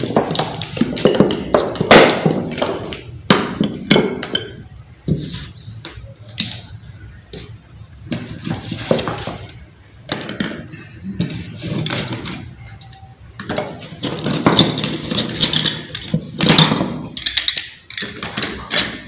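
Wooden sticks, pebbles and small plastic pieces knocking and clattering as they are picked up and set down in a pile on a cloth-covered table, in a string of short irregular knocks.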